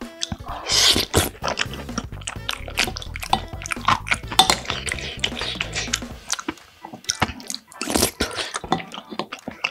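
Close-miked eating sounds: a wooden spoon scraping a ceramic bowl of tomato-sauced penne, and wet chewing of the pasta as many small clicks and smacks.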